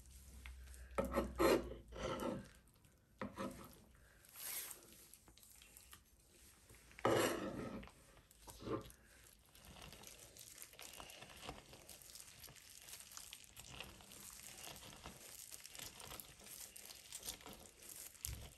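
A lemon half pressed and twisted back and forth on a plastic hand juicer, a steady rough rubbing through the second half. Before it, a few louder knocks and scrapes of kitchen handling, the loudest about seven seconds in.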